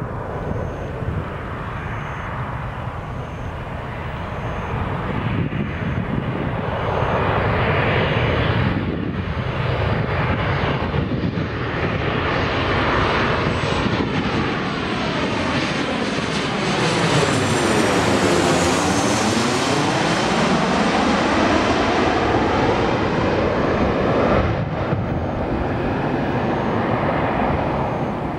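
Boeing 737-800 airliner's CFM56-7B turbofan engines on landing approach, growing louder as the jet comes in and passes low overhead about two-thirds of the way through, then easing as it moves away. Around the pass the jet noise takes on a swooshing sweep that falls and then rises in pitch.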